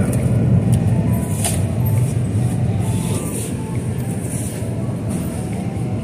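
Steady low rumble of store background noise, with a few faint clicks and rustles.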